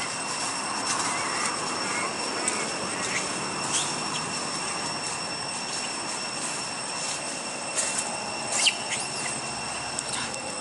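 Steady, high-pitched buzzing drone of forest insects, holding several high pitches at once, with a few short sharp chirps and clicks over it, the loudest a little over three quarters of the way through.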